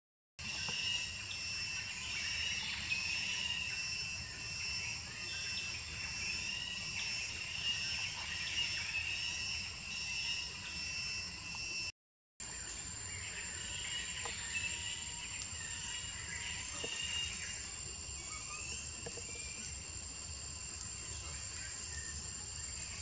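Forest ambience: insects droning at several steady high pitches, with scattered faint chirps over it. The sound cuts out briefly twice, and after the second break, about twelve seconds in, the mix of insect tones changes.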